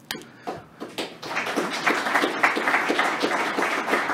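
Audience applauding: a few scattered claps at first, then steady applause from about a second in.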